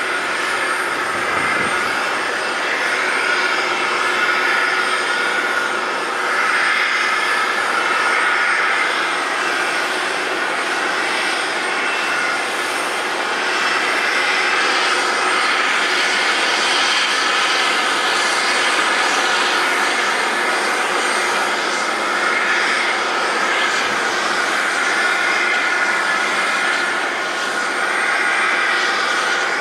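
Twin turbofan engines of an Airbus A320-family airliner running at idle during pushback and the start of taxi: a steady jet whine and rush, its pitch wavering slightly.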